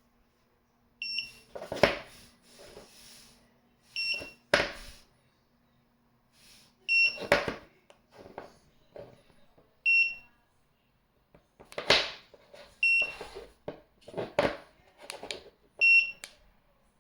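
Ticktime timer beeping non-stop: one short, high-pitched beep about every three seconds. Loud sharp knocks and clatters come between the beeps.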